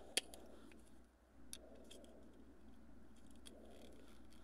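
Small sharp plastic clicks from the clipped case of a Lexus key fob being pried apart, the loudest two just after the start and another about a second and a half in. The case is very tight.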